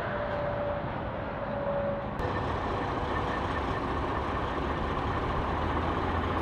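Steady rumble of heavy trucks and road traffic, with a faint thin hum above it; the background shifts slightly about two seconds in.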